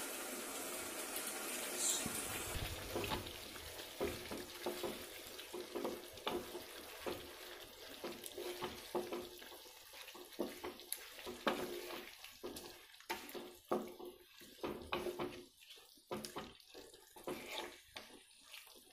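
Chicken sizzling in a nonstick kadai, then a wooden spatula stirring it, with irregular scrapes and knocks against the pan as the sizzle dies down.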